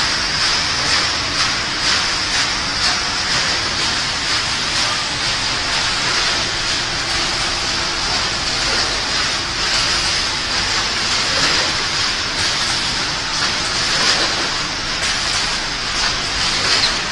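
Steady, dense machinery din of a running puffed-snack production line, conveyors and hoppers moving snack balls, heard as an even rushing noise with a strong high hiss.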